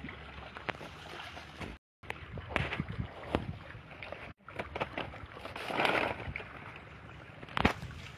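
Water splashing and sloshing as a person wades with a scoop net through a shallow fish pond, with a louder splash about six seconds in. The sound cuts out briefly twice.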